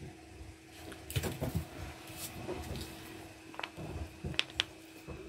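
Scattered light clicks and knocks of hands working at a tin of condensed milk, trying to open it without success, over a faint steady hum.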